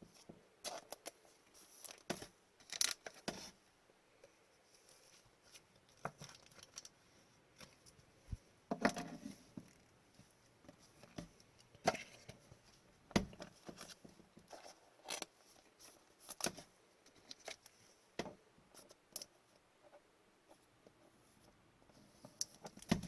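Hockey trading cards handled by hand, slid and flicked through one at a time, with light rustling of packaging: scattered soft clicks and scrapes at irregular moments.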